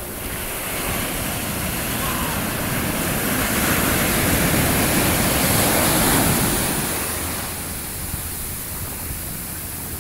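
Ocean surf: a wave builds and breaks on the beach, the rush of white water swelling to its loudest in the middle, then fading as the wash runs up the sand.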